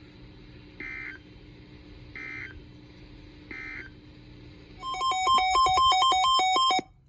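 Emergency Alert System end-of-message data bursts: three short buzzy digital bursts a little over a second apart. About five seconds in comes a louder two-second electronic warble of rapidly alternating beeps, which stops abruptly.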